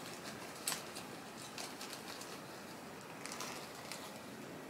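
Quiet room hiss with a few faint, light clicks scattered through it.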